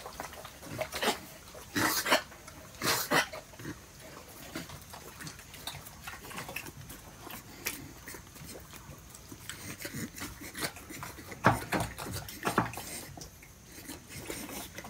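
Pigs grunting in short, irregular bursts, loudest about two and three seconds in and again near the twelve-second mark.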